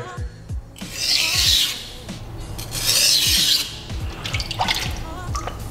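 Two long scraping strokes of a Nishida kurouchi petty knife across a wet 220-grit Naniwa whetstone, each a gritty swell about a second long, made with light pressure to deburr the edge after the chip repair. Background music with a steady beat runs underneath.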